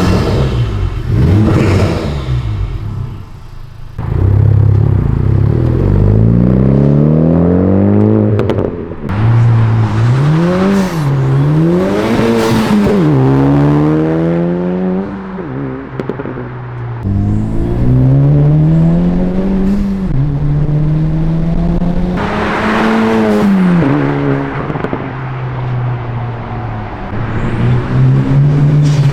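Acura Integra Type-S's turbocharged K20C four-cylinder exhaust through a Tomei Expreme-Ti full titanium muffler, accelerating hard through the gears. The note climbs in pitch, drops at each upshift and climbs again, several times over.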